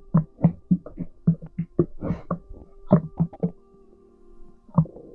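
Stomach gurgles from a pregnant belly recorded close up: a quick run of low popping thumps, about three a second, that stops about three and a half seconds in, with one more pop near the end, over a faint steady hum.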